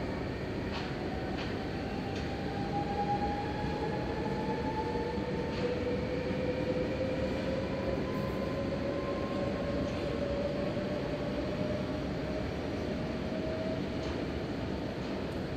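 NS double-deck electric train pulling out, its traction motors whining in two tones that rise slowly as it gathers speed, over a steady rumble of wheels on rail with a few faint clicks.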